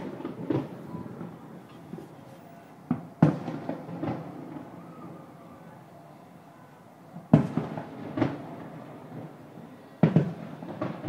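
Fireworks shells bursting over the harbor, heard from a distance as irregular booms with echoing tails, several coming close together in the last second or so.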